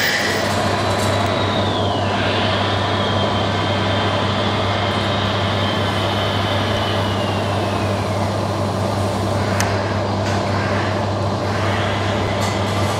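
Steady low hum and drone from a radio-controlled scale low-loader truck and its model machinery, with a faint high whine that slowly slides down in pitch twice.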